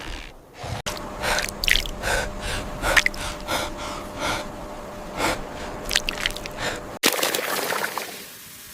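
A person gasping for breath in quick, hard breaths, two or three a second. The breathing cuts off abruptly about seven seconds in and gives way to a short, fading hiss.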